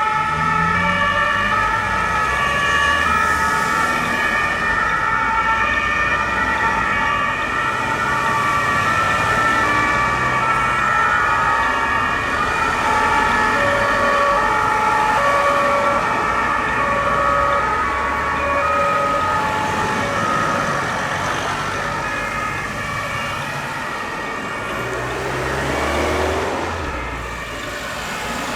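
Several German two-tone emergency sirens (Martinshorn) sounding at once, their alternating high-low tones overlapping out of step, over the low running of the vehicles' engines. The sirens slowly grow fainter toward the end.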